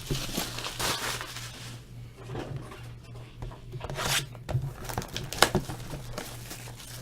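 Trading-card packaging being opened by hand: wrapper torn and crinkled in irregular bursts, with a few sharper crackles about four and five and a half seconds in.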